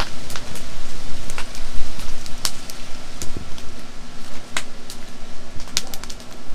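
Hands kneading flour and water into frybread dough in a stainless steel bowl, with a dozen or so scattered sharp clicks over a heavy low rumble.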